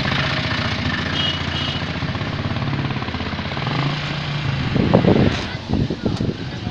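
A vehicle engine idling with a fast, even pulse, heard from the vehicle's roof, then wind buffeting the microphone in irregular gusts from about five seconds in as the vehicle gets moving.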